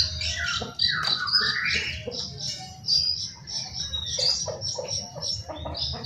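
Caged long-tailed shrikes (cendet) calling while matched against each other: a run of short, high chirps and harsh squawks, with one rising whistled sweep about a second and a half in.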